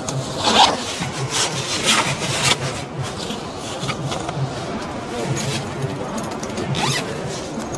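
Zipper on a rooftop tent's window flap being pulled in a few short strokes, with the poly/cotton canvas rustling and rubbing as it is handled, over a steady low hum.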